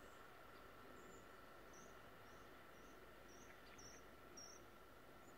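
Near silence: faint outdoor ambience with a run of soft, high-pitched chirps, about two a second, through the middle, over a faint steady whine.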